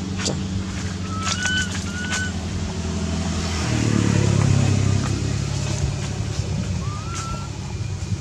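A vehicle engine running steadily, its pitch shifting and its level rising a little about four seconds in. A few short rising squeaks come over it, three in the first couple of seconds and one near the end.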